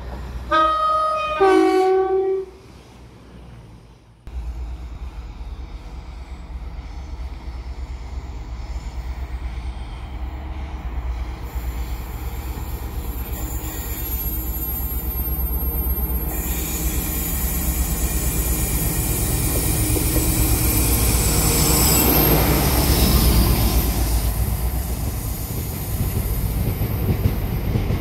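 A train horn sounds two short notes of different pitch at the start. Then a Class 60 diesel locomotive hauling a loaded aggregates train approaches, its low engine rumble growing steadily louder with a thin high whine above it, loudest as the locomotive passes close by, followed by the wagons running past with wheel clatter.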